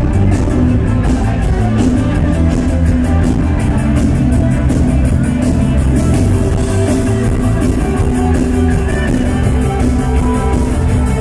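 Loud live electronic jam-band music: drums keeping a steady, fast beat over heavy bass, with guitar and keyboards.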